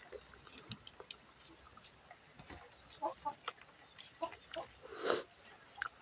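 Close-miked chewing and lip smacking of rice and nettle curry: scattered soft clicks and wet mouth noises, with one louder smack about five seconds in.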